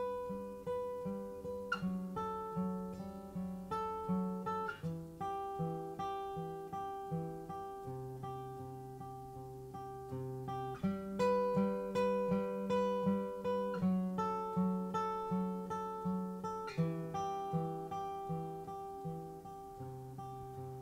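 Acoustic guitar playing an instrumental intro without vocals: picked chords on a steady beat, about two a second, the chord changing every few seconds.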